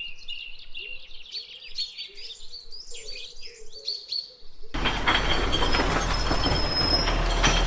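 Small birds singing in quick, varied chirping phrases. A little under five seconds in, this cuts off abruptly and a louder steady rushing noise with a low hum takes over.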